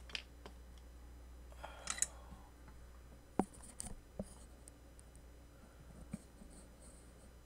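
Scattered light clicks and ticks and a short scrape of small tools being handled at a workbench, the sharpest tick about three and a half seconds in, over a low steady hum.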